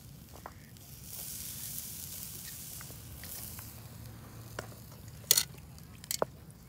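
Marinated beef short ribs sizzling on a charcoal grill grate, a hiss that rises about a second in and fades after a few seconds. Then metal tongs click several times, the loudest a sharp double click about five seconds in.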